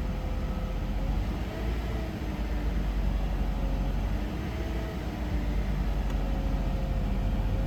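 2010 Honda Accord engine idling steadily just after a start, its raised idle settling down during an idle relearn after the throttle learning values were reset.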